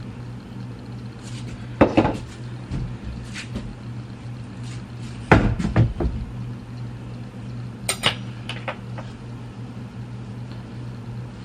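Small hard objects being handled and set down on a hard surface: a few knocks and clinks, the loudest cluster about halfway through, over a steady low hum.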